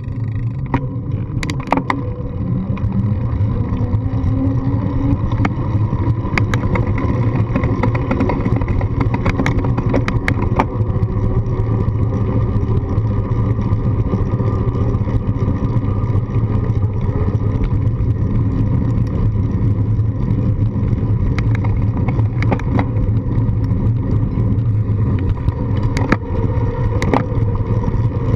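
Steady low rumble of road vibration and wind picked up by a GoPro on a moving bicycle's handlebar mount, with scattered sharp knocks as the wheels roll over the joints of a slab-paved path.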